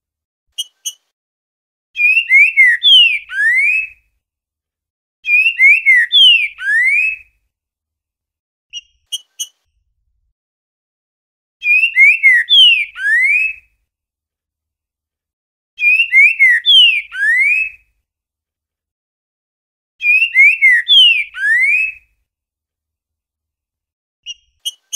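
Green-winged saltator (trinca-ferro) singing the boiadeiro song type: five loud whistled phrases of about two seconds each, separated by a few seconds, with short clipped notes in between.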